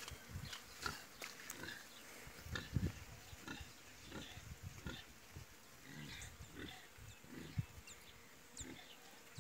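Pregnant sow giving short, soft grunts at irregular intervals while she roots at the ground, with scattered small clicks and rustles.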